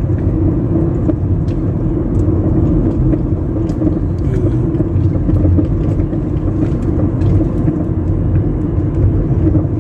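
Steady engine and tyre noise of a moving car, heard from inside the cabin: a continuous low rumble.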